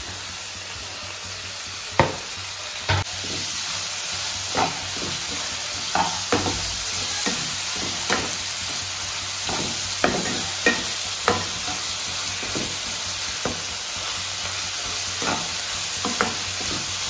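Chopped onions, tomatoes, green chillies and mint leaves sizzling in hot oil in a frying pan, while a metal spoon stirs them, clicking and scraping against the pan every second or so. The sizzle grows a little louder a few seconds in.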